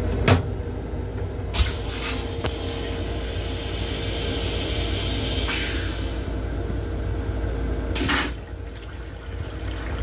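Train toilet in an MTA M7 rail car restroom: a sharp knock near the start as the plastic seat knocks back against the wall, then the flush, a hiss of rinse water for a few seconds ending in a loud whoosh about eight seconds in as the steel bowl empties. The moving train's steady low rumble runs underneath.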